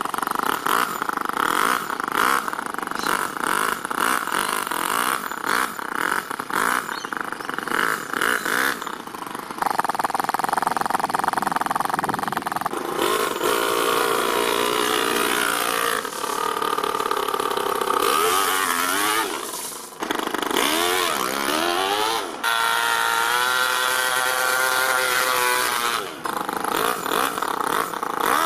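Toyan FS-L200 two-cylinder four-stroke nitro model engine in an RC crawler, running and revving up and down, with several sudden changes in its sound.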